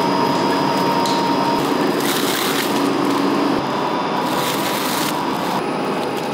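Steady hum of factory machinery, the two-roll rubber mill running, with crinkling of plastic film as silicone sheets are handled, loudest about two and five seconds in.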